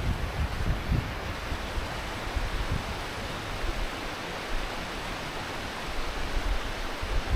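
Valley stream rushing over rocks: a steady, even wash of water noise.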